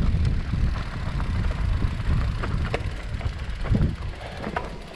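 Mountain bike rolling down a rocky trail: wind buffeting the microphone, tyres on loose ground and scattered sharp clicks and rattles from the bike. The noise eases off toward the end as the bike slows.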